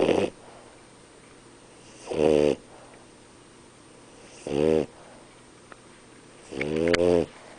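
French bulldog snoring in its sleep: short, pitched snores of about half a second each, coming roughly every two seconds, with the tail of one at the very start and three full ones after it, the last the longest and loudest.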